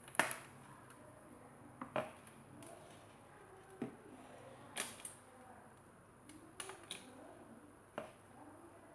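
Scattered light clicks and taps, about eight at uneven intervals, from small parts and cable being handled while wiring up a 12 V fan unit.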